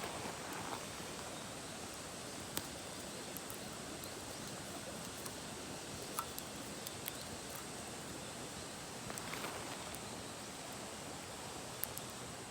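Steady rushing of a mountain stream, with a few faint clicks and a brief rustle near the end.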